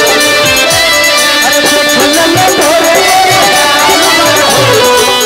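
Instrumental interlude of Bhojpuri folk stage music: a wavering melodic lead over a steady beat, played loud, with no singing.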